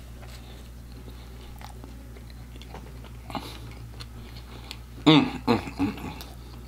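Close-up chewing of a fried chicken nugget, soft wet clicks and crunches from the mouth. About five seconds in, a loud wavering closed-mouth hum from the eater.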